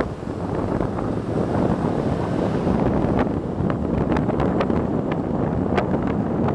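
Heavy wind buffeting the microphone of a moving vehicle, over the low, steady running noise of the vehicle, with a few light clicks scattered through.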